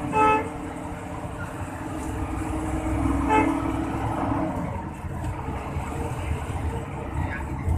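A bus horn gives two short toots, one right at the start and one about three seconds in. Underneath is the steady rumble of the bus engine and road noise.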